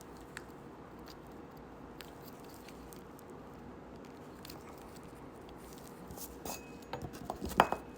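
Quiet room tone with a faint steady hum and a few scattered small ticks. In the last two seconds comes a cluster of small clicks and rustles as wire ends are handled and pushed into butt connectors, with one sharper click near the end.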